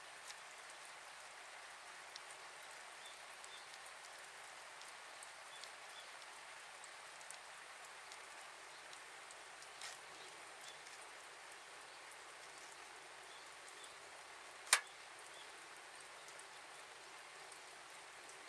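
Kindling and paper catching fire in a small steel fire box: a faint steady hiss with scattered soft crackles, and one sharp pop about fifteen seconds in.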